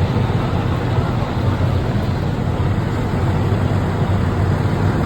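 Steady low rumble of vehicle traffic and idling engines.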